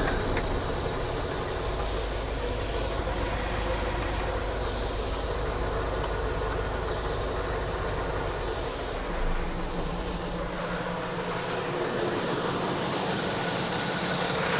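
An engine running steadily under a hissing rush of air. About nine seconds in, the low drone gives way to a steadier, higher hum.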